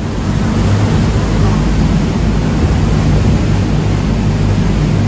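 River tour boat's engine running steadily under way: a low, even drone with a steady rushing noise of water and wind over it.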